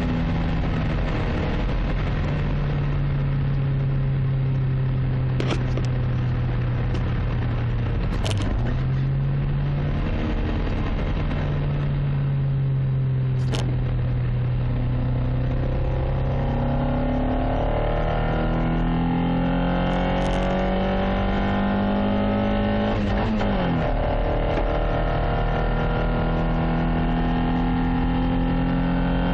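Toyota Carina E's 1.6-litre 16-valve four-cylinder engine running on one bad injector, which the owner puts down to bad fuel. Its pitch wavers up and down and climbs in the second half as the revs rise, with a few short sharp clicks along the way.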